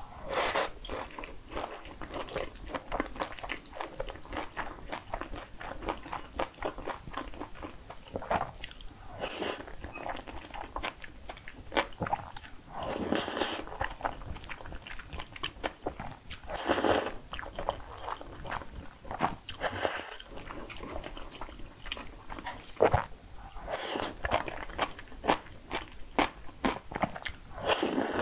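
Close-miked eating of jajangmyeon (black bean noodles): steady wet chewing and mouth clicks, with a louder slurp of noodles every few seconds.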